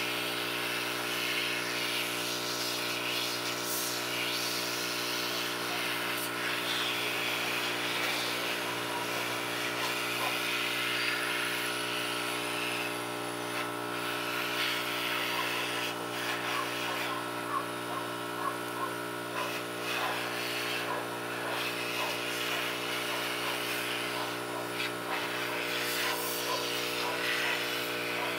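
Hot air rework station handpiece blowing steadily: a constant motor hum with a rush of hot air, playing over a phone's touch-screen glass to soften its adhesive.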